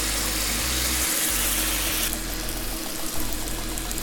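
Freshly drained, wet spaghetti sizzling and hissing in a hot stainless steel frying pan with rendered guanciale fat as it is stirred with a spoon; the hiss falls away sharply about two seconds in.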